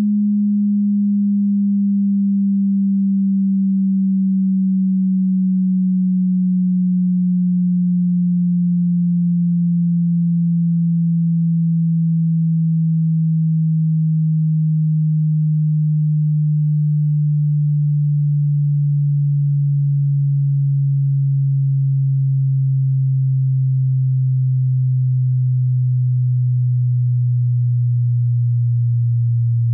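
Hearing-test sine-wave tone: a single pure, low tone gliding slowly and evenly downward in pitch at a steady level, part of a high-to-low frequency sweep.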